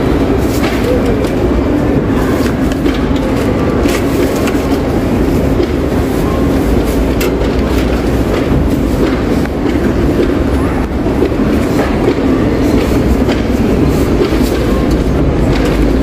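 Supermarket checkout ambience: a steady, dense din of the store with indistinct voices, and scattered short clicks and knocks from the tills.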